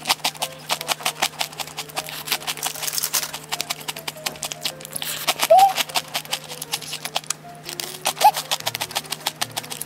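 Close-miked crunching of crispy cinnamon stick biscuits being bitten and chewed, crisp from the air fryer: a rapid, irregular run of sharp crackles.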